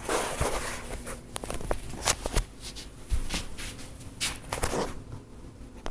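Handling noise: irregular rustling with scattered light knocks and clicks.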